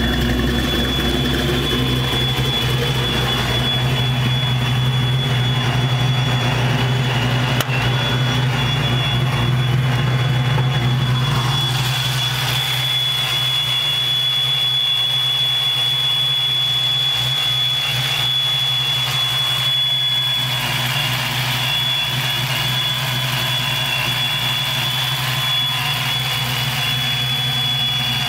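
Vortech-supercharged 306 ci Ford V8 of a 1992 Mustang idling steadily, with a thin steady high whine over the low rumble. The low rumble lessens about twelve seconds in.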